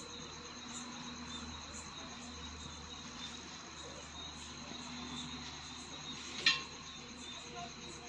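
Insects chirping steadily in the background, an even, high, pulsing trill. There is a single sharp click about six and a half seconds in.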